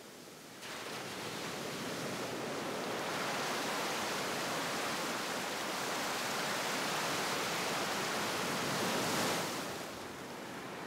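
Sea surf washing on the shore as a steady rushing noise. It rises abruptly about a second in and falls away near the end.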